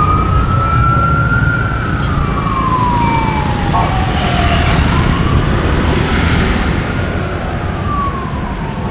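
An emergency vehicle's siren wailing in slow sweeps: it rises, falls away over about four seconds, rises again and falls, over the low rumble of street traffic.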